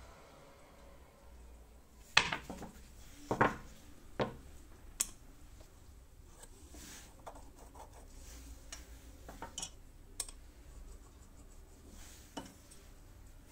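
Small wooden blocks knocking as they are set down on hard shop surfaces: four sharp knocks in the first five seconds, then lighter scattered taps and clicks.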